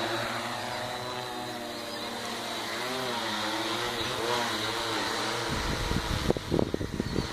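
Quadcopter's electric motors and propellers buzzing in flight, the pitch rising and falling as the throttle changes. From about five and a half seconds in, wind gusts buffet the microphone.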